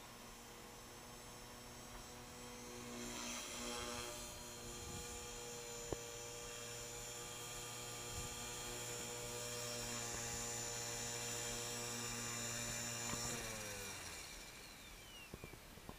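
Align T-Rex 450 Pro electric flybarless RC helicopter, its motor and rotor giving a steady, pitched whine that grows louder about three seconds in. About thirteen seconds in the pitch drops and the sound fades as the landed helicopter's motor and rotor spool down.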